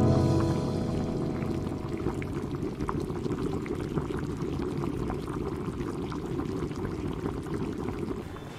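Water at a rolling boil in a steel pot on a gas stove: a steady, dense bubbling with fine crackles throughout.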